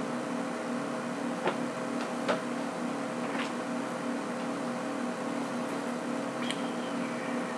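A steady electrical hum with a pulsing low tone under it, broken by a few light clicks and knocks.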